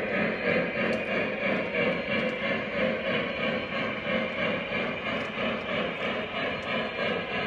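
O-gauge model double-stack container train rolling along its track, a steady rumble of many metal wheels on rail that pulses about twice a second.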